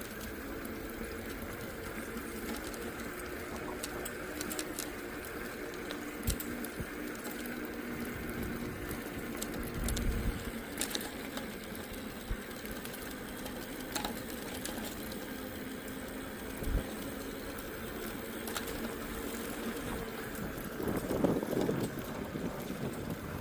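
Bicycle rolling along a paved trail: a steady hum of tyres and drivetrain, with scattered small clicks and rattles.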